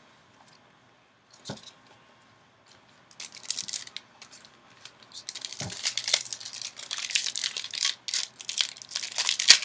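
Foil wrapper of a Yu-Gi-Oh booster pack crinkling and tearing as it is opened, in dense crackly rustling from about three seconds in that thickens past the five-second mark. Two soft knocks come before it.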